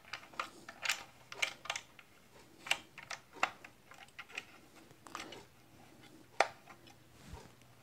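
Irregular light clicks and taps as a BenQ GW2480 monitor stand's steel base plate and its screw are handled by hand, with a sharper click about six seconds in.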